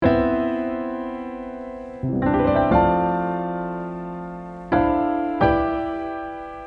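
Piano music: slow, soft chords struck about every one to two seconds, each ringing and slowly fading before the next.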